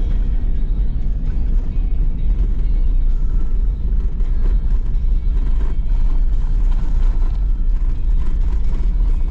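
Steady low rumble of tyre and road noise inside a Mercedes-Benz car's cabin as it drives over a compacted sand track, with background music over it.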